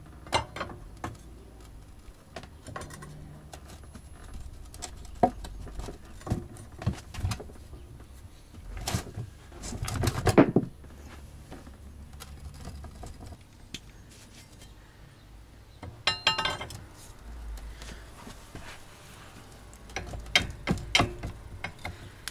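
Intermittent metal clinks and knocks of a steel bar and tools working against a pressure washer pump that is stuck tight on the engine's crankshaft. There is a louder, longer stretch of noise about ten seconds in, and a ringing clatter of clinks a few seconds later.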